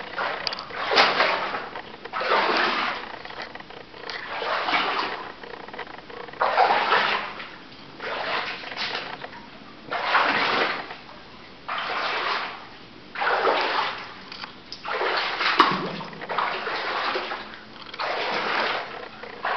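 Footsteps wading through water, a splashing slosh with each step, about one every one and a half to two seconds.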